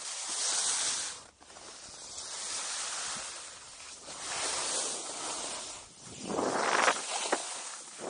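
Skis scraping and hissing over packed snow through a run of linked turns, the noise swelling with each turn about four times, loudest near the end, with one short click.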